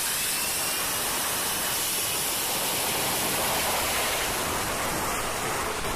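F-35B jet, its F135 turbofan and lift fan, running at high power on a carrier flight deck in short-takeoff/vertical-landing mode with the lift fan doors open: loud, steady jet noise, with a faint high whine in the first couple of seconds.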